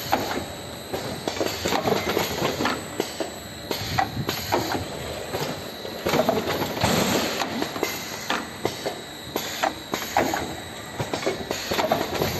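Vertical automatic cartoning machine running: a continuous mechanical clatter with many irregular sharp clicks and knocks from its moving parts.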